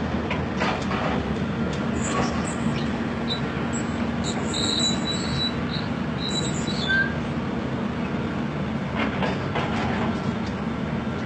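Tracked excavator's diesel engine running steadily, with high metallic squeals for a few seconds near the middle.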